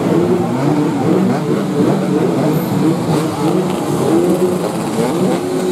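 Several two-stroke 116cc underbone racing motorcycles riding past together, their engine notes overlapping and repeatedly rising and falling as they rev.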